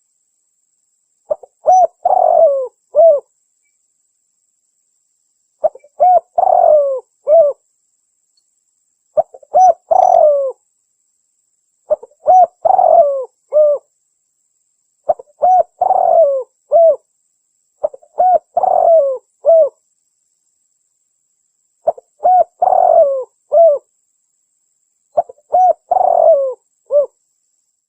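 Spotted dove (tekukur) cooing, played as a lure call: phrases of several coos repeated about every three seconds, with dead silence between them.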